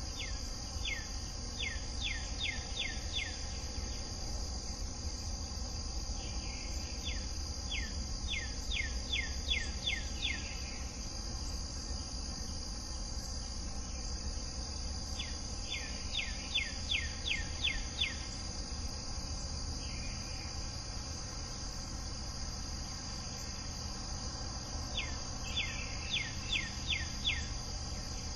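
Steady high-pitched drone of an insect chorus, with a bird singing four phrases of about five to seven quick down-slurred whistles each, spaced several seconds apart.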